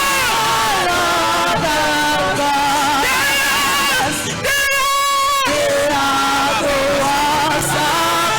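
Worship music with a voice singing long, wavering held notes.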